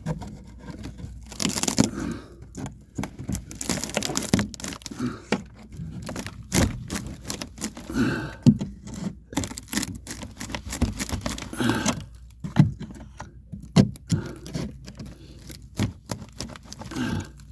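Irregular knocks, cracks and scraping from hammering and prying at old nailed floor boards and joists with a hammer and a flat pry bar.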